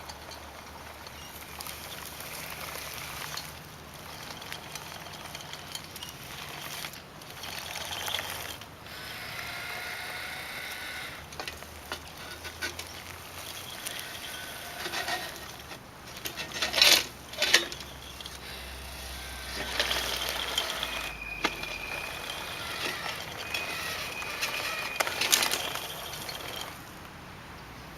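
Small electric drive motors and gearboxes of radio-controlled bulldozers whining in short runs that start and stop, with clicks and clatter from the tracks. There are sharper scraping knocks about two-thirds of the way through.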